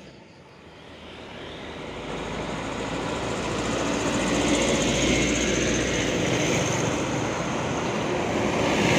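A bus approaching along the road: engine and tyre noise grows steadily louder over the first four seconds or so, then stays loud as it comes close.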